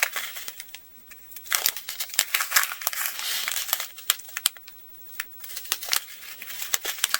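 Small plastic bags of craft pearls and rhinestones being handled, crinkling in short rustling spells with many small clicks.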